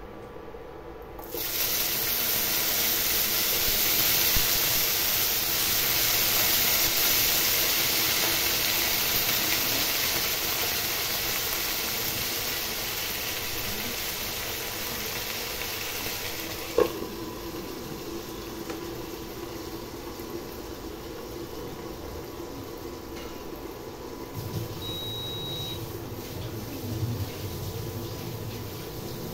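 Chopped okra frying in hot oil in a non-stick pan: a loud sizzle starts suddenly about a second in and slowly dies down over the next fifteen seconds. A single sharp knock comes midway, and a quieter sizzle continues after it.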